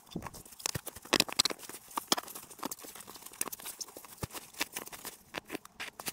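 Irregular knocks, clicks and rustling from things being handled, densest a little over a second in.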